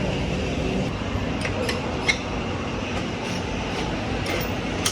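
Scattered light metallic clicks and taps of hand tools as mechanics take a motorcycle's rear wheel off, over steady low background noise.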